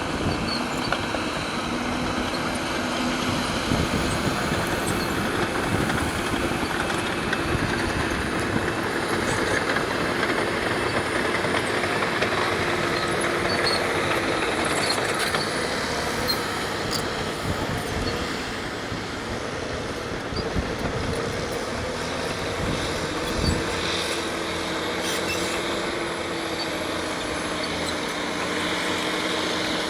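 Caterpillar D6R LGP bulldozer at work, its diesel engine running under load with a pitch that rises and falls a little, over constant machinery noise. A single knock sounds about 23 seconds in.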